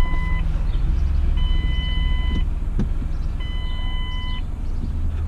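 A 2003 Ford Escape's dashboard warning chime sounds in one-second tones, repeating every two seconds, over the steady low running of the engine at idle.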